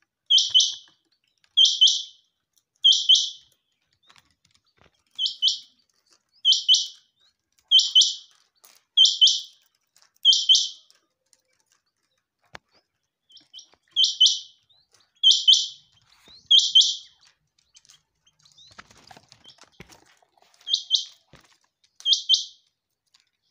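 A quail calling: a short, high call repeated about once every second and a quarter, in runs of several calls with a few seconds' pause between runs.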